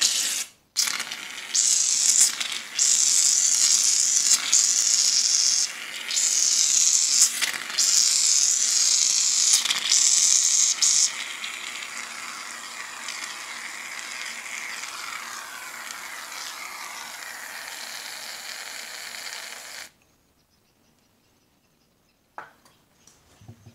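Aerosol can of shaving foam spraying: a series of loud hissing bursts for about ten seconds, then a weaker steady hiss that stops about twenty seconds in. A single click near the end.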